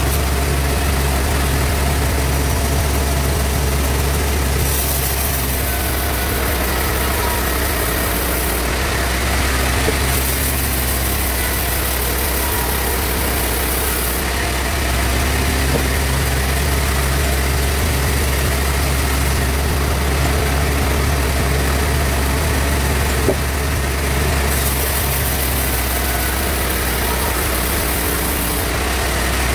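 Sawmill bandsaw machinery running steadily with a constant low hum. A high hiss comes and goes several times.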